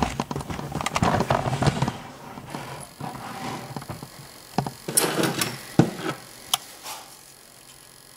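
Small metal clicks and scrapes of lock-picking tools working in a 5-pin Corbin mortise lock cylinder. A dense run of clicks comes first, then a few sharp single clicks later on.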